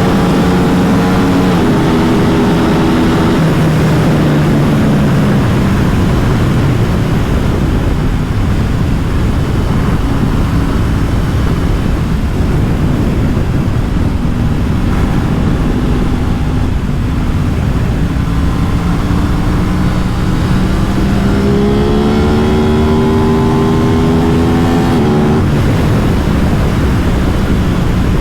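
Aprilia RS 660's parallel-twin engine slowing down over the first few seconds, its note falling with a gear change. A steady rush of noise fills the middle. Near the end it accelerates with a rising note that cuts off sharply at a gearshift.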